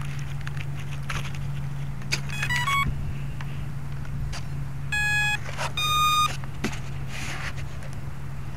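Electronic speed controller of an electric RC plane sounding its start-up tones through the brushless motor: a quick run of short stepped beeps, then two longer beeps about a second apart, the second higher, over a steady low hum. These are the ESC's power-up and arming tones.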